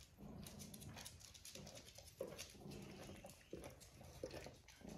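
Faint soft licking and rustling of fur as a cat grooms a puppy, with a low hum that comes and goes.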